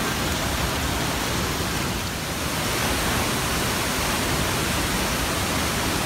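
Steady rush of falling water pouring over rocks, an even noise with no breaks.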